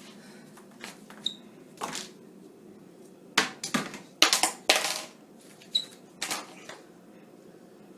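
A few sharp clicks and knocks, light clattering that is thickest in the middle, with two brief high pings.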